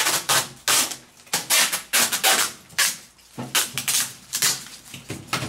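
Hammer blows on a microwave oven's metal casing, fast and irregular at about three or four strikes a second, with a short pause about three seconds in.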